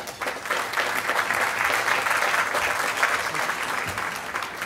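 Audience applauding, swelling over the first second or two and dying away near the end.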